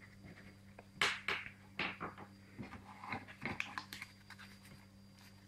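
Irregular clicks, taps and rustles of a hand reaching into a toy candy grabber claw machine and taking out a paper raffle ticket, the loudest click about a second in, over a low steady hum.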